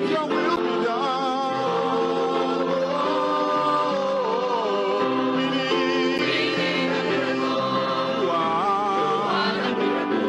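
Mixed church choir of men's and women's voices singing a slow gospel song in held chords, the upper voices wavering with vibrato; the words run "Let Your will be done, oh-oh-oh… We need a miracle."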